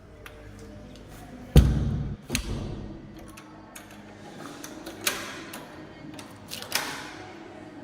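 A door shutting with a heavy thud about a second and a half in, then a knock and two sharp clicks: doors being closed and latched.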